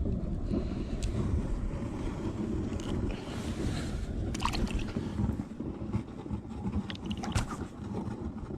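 Wind buffeting the microphone as a steady low rumble, with a few short clicks and scrapes about a second in, halfway through and near the end.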